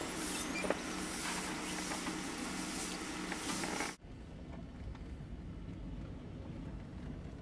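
Even outdoor hiss with a steady low hum, then an abrupt cut about four seconds in to the low rumble of a vehicle driving along a rough dirt track, with wind on the microphone.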